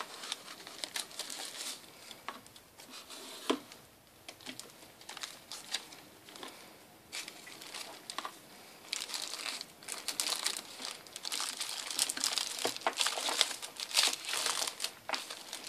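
Clear plastic bag crinkling and rustling as it is handled and pulled off a model locomotive, sparse at first, then busier and louder over the last several seconds. A sharp click about three and a half seconds in.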